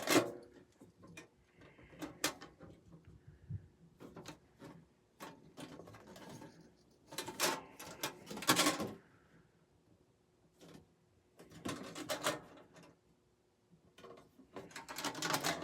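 Lunchbox being handled: scattered light clicks and knocks, with denser bouts of clatter about seven to nine seconds in and again around twelve seconds.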